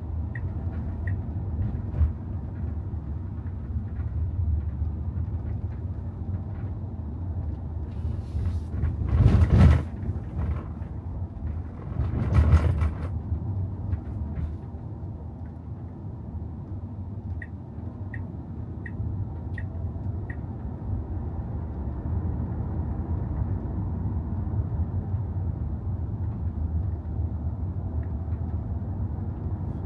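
Tesla Model Y driving. As an electric car it has no engine note, only a steady low road and tyre rumble. There are two louder whooshes about nine and twelve seconds in, and a short run of faint, evenly spaced ticks about eighteen seconds in.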